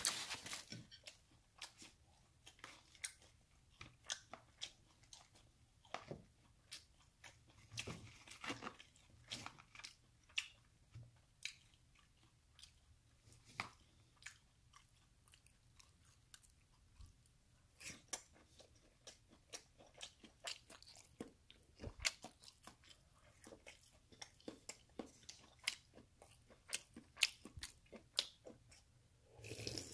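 Close-up chewing and biting of a fast-food breakfast of bacon, sausage, hash brown and pancakes, with many sharp, crunchy clicks at an irregular pace. There is a quieter stretch a little past the middle.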